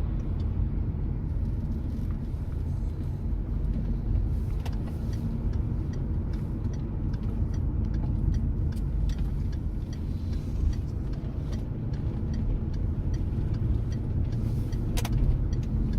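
Car driving on the road, a steady low rumble of engine and tyres, with a few faint clicks and a sharper one near the end.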